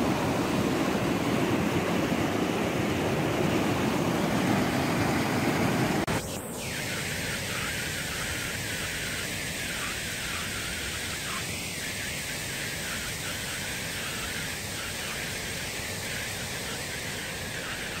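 Mountain stream rushing over rock ledges and small cascades, a steady rushing of water. About six seconds in it changes abruptly from a louder, deeper rush to a quieter, higher hiss.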